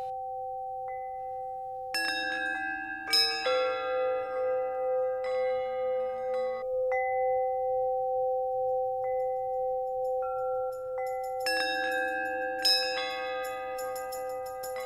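Background music of chime-like bell tones: clusters of struck notes ring out over two long held notes, with flurries of strikes about two seconds in and again past the eleven-second mark.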